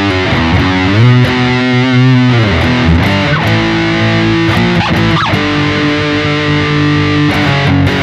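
Lyon by Washburn HSS electric guitar on its bridge humbucker, played through the Zoom G1X On's BG Throttle distortion, a model of a Mesa Boogie Throttle Box: heavy distorted chords and held notes, really loud and heavy. There are two quick upward slides, about three and five seconds in.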